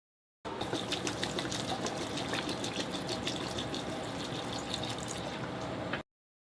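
Water being poured into a container, a steady splashing stream with fine bubbling, starting abruptly about half a second in and cutting off suddenly after about five and a half seconds.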